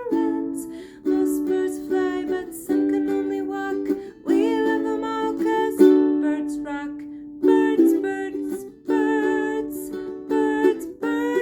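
Music: chords strummed on a plucked string instrument, roughly one a second, each ringing and fading, with a melody line above.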